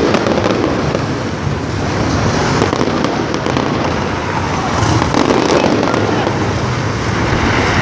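Fireworks going off: scattered crackles and pops over a continuous noisy din.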